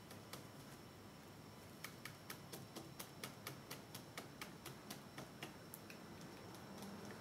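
Faint quick ticking, about five ticks a second for three to four seconds: a paintbrush dabbing and working acrylic paint on a palette.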